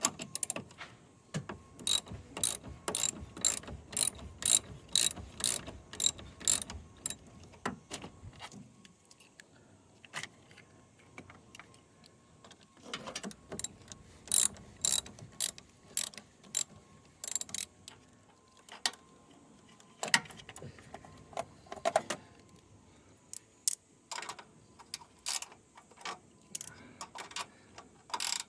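Hand ratchet wrench clicking, about two sharp clicks a second, in three spells with short pauses between them.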